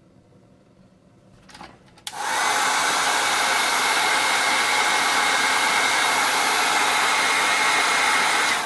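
Hot-air blower running steadily with a faint whine, shrinking heat shrink tubing over solder joints; it switches on about two seconds in and stops near the end.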